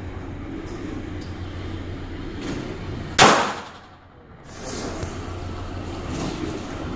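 A single gunshot from a Glock 19 pistol converted to fire .22 rimfire, a sharp crack about three seconds in that dies away within a second, over a steady low background rumble.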